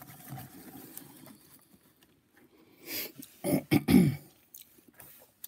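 A man clearing his throat: a short, loud, rough rasp about three and a half seconds in, just after a quick breath.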